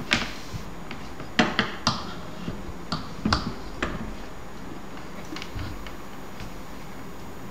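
Scattered sharp clicks and taps of hand tools being handled and set down on a work board: a soldering iron and a pair of scissors. Most of the clicks come between about one and four seconds in, with a few fainter taps later.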